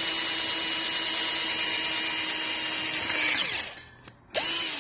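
Electric drill running steadily as it bores a hole through the sculpture's sheet-steel head. A little past three seconds in it is released and its pitch falls as it spins down. It starts up again near the end.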